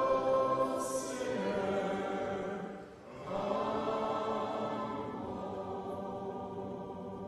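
Congregation singing a hymn a cappella, many voices together. There is a brief break about three seconds in, then a long held chord.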